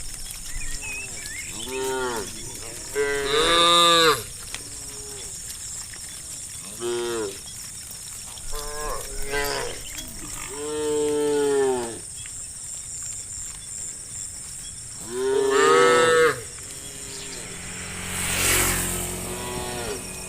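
Cows mooing: a series of separate drawn-out moos, one after another, with the loudest calls about a third of the way in and again about three quarters through. Near the end comes a rougher, noisier low sound.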